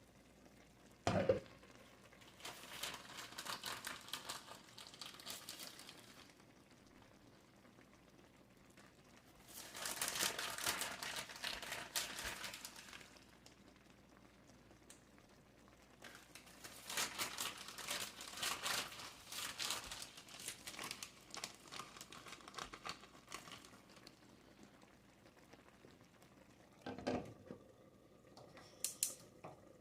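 Close-up eating sounds: spicy ramen noodles being slurped and chewed in three bursts of a few seconds each, with a short knock about a second in and another near the end.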